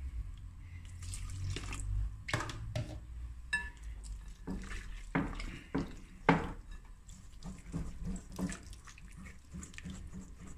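Wire whisk beating a thick flour-and-water batter in a glass bowl, giving irregular wet strokes and clicks of the wires against the glass.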